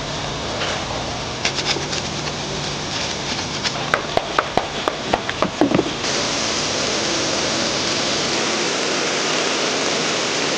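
Brushes scrubbing a foam-covered engine bay, with scratchy scrapes and a run of sharp clicks and taps. About six seconds in, a steady hiss of pressure-washer spray starts suddenly.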